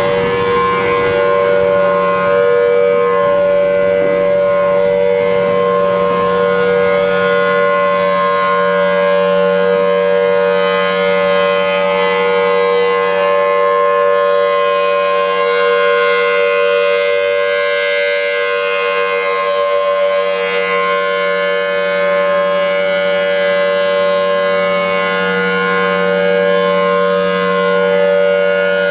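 Pole-mounted outdoor warning siren sounding a steady, unbroken tone.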